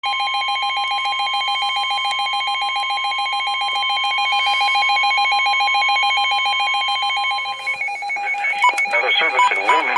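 Emergency Alert System attention tone: a steady high tone together with a rapidly pulsing lower tone, loud and unchanging for about seven and a half seconds, signalling the start of a weather warning broadcast. About eight seconds in, the steady tone stops and a voice begins reading the warning while a pulsing tone goes on beneath it.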